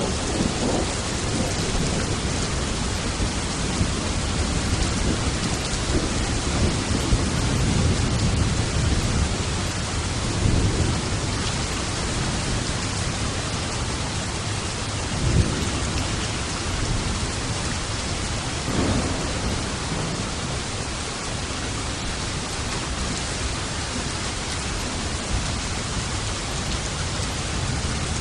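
Steady heavy rain with thunder rumbling low underneath. A sharper thunderclap comes about fifteen seconds in, and another rumble follows a few seconds later.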